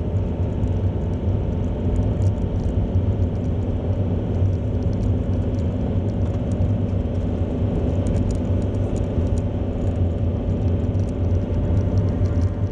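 Steady low rumble of a vehicle, with a constant hum and no change in pitch.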